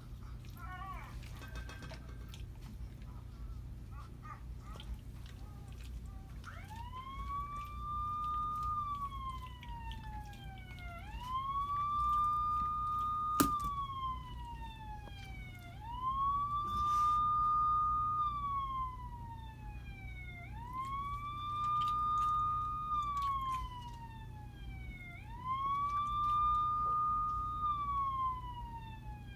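Siren wailing: a slow rise, a short hold, then a falling glide, repeating about every four and a half seconds, starting about six seconds in. A single sharp click about halfway through.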